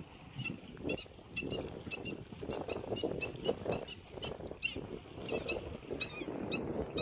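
Birds chirping repeatedly, several short calls a second, over a rough rush of wind and water.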